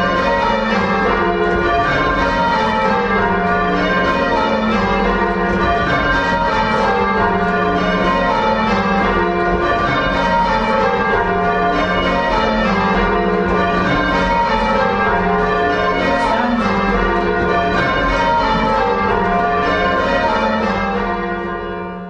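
Church tower bells change ringing, part of a quarter peal: the bells strike one after another in rows that step down in pitch and keep changing order. The ringing fades out near the end.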